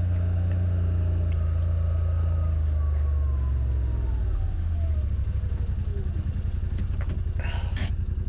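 Pickup truck engine running, with a faint whine falling in pitch as the truck slows. About halfway through the engine drops to a lower, pulsing idle, and a few sharp clicks come near the end.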